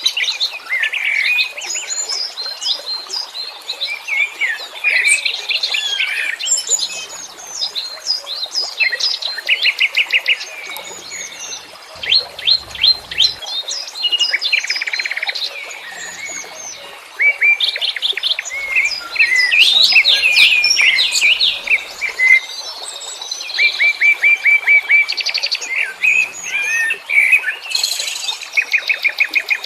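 Several wild songbirds chirping and singing over one another, with high whistled notes and, several times, fast trills of rapidly repeated notes.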